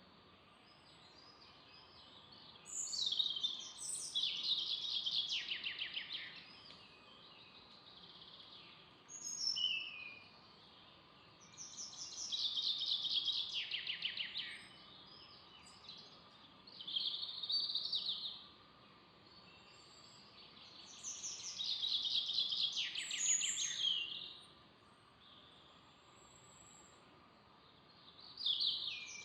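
A songbird singing in a forest, repeating the same song phrase of two to three seconds about every five to nine seconds, each phrase ending in a fast falling trill, over a faint steady outdoor background.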